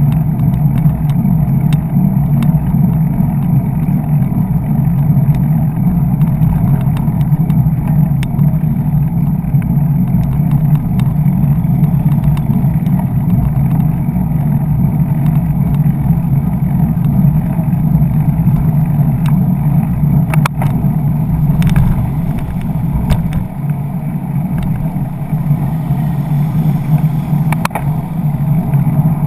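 Steady wind rumble on a handlebar-mounted camera's microphone while cycling along a road beside slow traffic, with a few sharp clicks or rattles in the last third.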